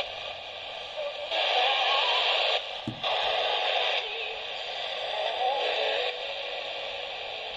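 Small speaker of a ROCKA 11-band portable radio (a Kchibo KK-9813 clone) playing a shortwave broadcast on the 16 metre band: thin, tinny music through steady static, the signal fading up and down every second or so. A single click about three seconds in.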